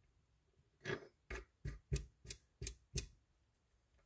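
Seven sharp small metal clicks, about three a second, as the star drag wheel is fitted onto the handle shaft of a Penn Senator II conventional reel.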